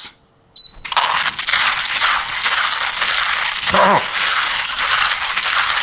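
KINgrinder K6 hand coffee grinder's conical burrs crushing a fine espresso dose of beans as the handle is cranked quickly: a steady, gritty crunching and rattling. It starts about half a second in, right after a short high beep.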